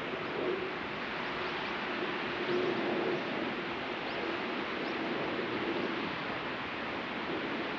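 Sea surf washing onto a beach, a steady hiss of breaking waves, with a faint low drone underneath that fades out near the end.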